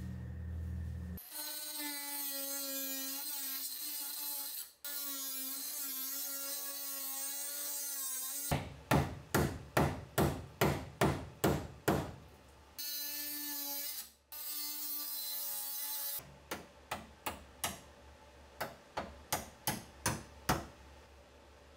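A power cutting tool whining through car-body sheet metal, its pitch wavering under load, in two runs. Between and after them, a hammer strikes the metal about twice a second, loud at first and lighter near the end, as the cut flaps are folded.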